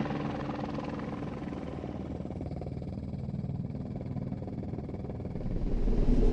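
Helicopter carrying an underslung lime-spreading hopper flies overhead, its rotors making a steady, rapid chop over a low engine hum. About five and a half seconds in it gets clearly louder and deeper.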